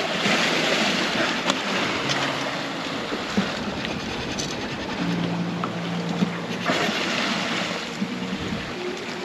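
Sea water rushing and splashing along a small sailboat's hull as it sails, with wind on the microphone. Faint held low tones sound underneath, changing pitch every few seconds.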